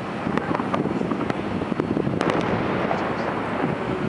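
Fireworks going off: a steady run of pops and crackles, with a few sharper cracks about two seconds in.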